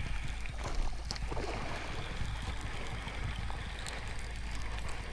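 Water sounds around a small fishing boat on a calm pond over a steady low rumble and hiss, with a few faint light clicks.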